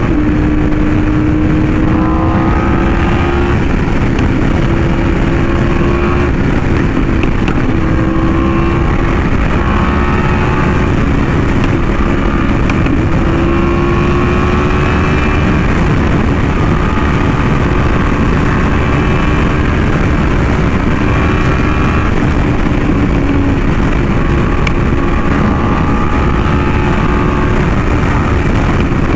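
Yamaha R1M's crossplane inline-four with an SC Project exhaust running at highway speed, its pitch drifting slightly up and down, under a heavy rush of wind.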